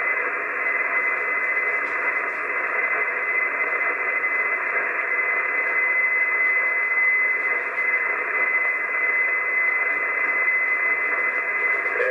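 Icom IC-751 HF transceiver receiving single-sideband on 6516 kHz with no one transmitting: steady band hiss through the receiver's narrow filter, with a constant high-pitched whistle from a carrier on the channel.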